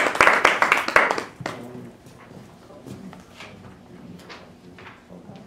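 Audience applauding, a dense patter of hand claps that dies away about a second and a half in. A few scattered claps and small knocks follow in a quiet room.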